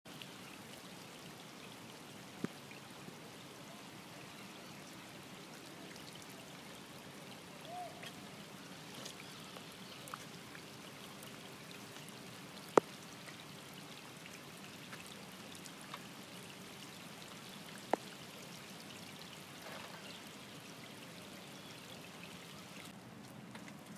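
Steady rush of flowing river water, with a few sharp knocks standing out, the loudest about 13 seconds in and another near 18 seconds.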